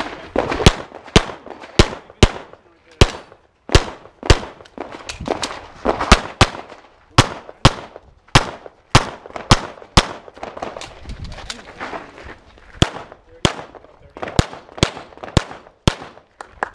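Handgun fired rapidly on a practical-shooting course of fire: sharp cracks come mostly in quick pairs, two shots per paper target, with short gaps between pairs, about two dozen shots in all.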